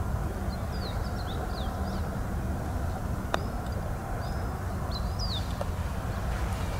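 Small birds chirping repeatedly in short, high, down-slurred notes over a steady low rumble. About three seconds in, a single sharp click of a putter striking a golf ball.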